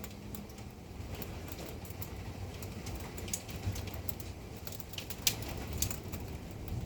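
Hailstones ticking against hard surfaces in scattered, irregular sharp clicks, a few louder ones late on, over a low steady noise of wind and rain.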